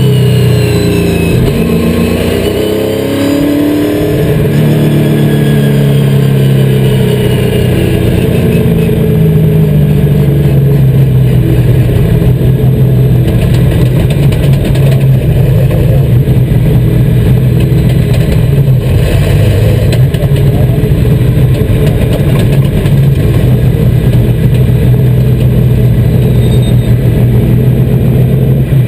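NASCAR stock car's V8 engine running loud inside the cockpit. Its pitch falls and rises over the first few seconds, then holds steady at constant revs.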